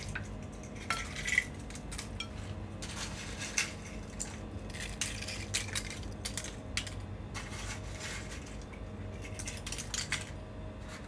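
Crisp fried papad strips being dropped and scattered onto a plate of fried anchovies, making a run of light, irregular crackles and clicks.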